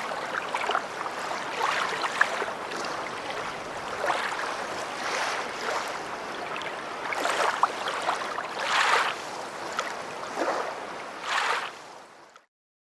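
Lake waves splashing in irregular surges every second or so, with two stronger splashes in the latter half. The sound fades out near the end.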